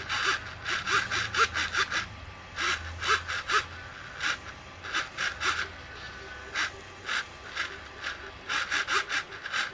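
Short scraping clicks in quick, irregular clusters, from small parts being handled by hand at a workbench.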